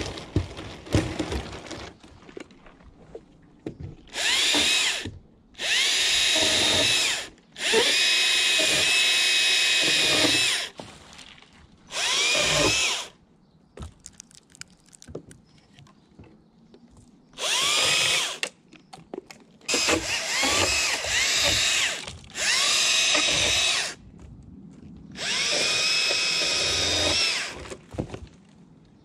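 Stihl chainsaw cutting through apple tree leaders in eight short bursts of one to three seconds. Each burst rises in speed at the start and dies away at the end, with quiet gaps between cuts. The first cut comes about four seconds in.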